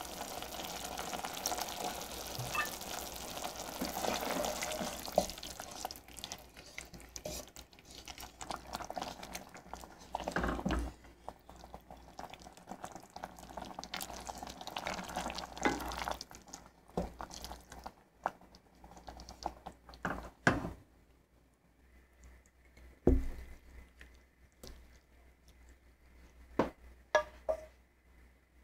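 Wooden spoon stirring collard greens in broth in a stainless steel pot: wet, sloshing stirring that thins out after about six seconds, followed by scattered sharp knocks of the spoon against the pot.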